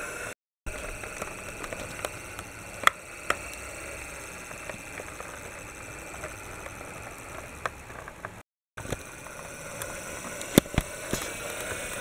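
Toy tram or trolleybus rolling across the floor: a steady mechanical whirring with a few sharp plastic clicks and knocks. It cuts out to silence twice, briefly.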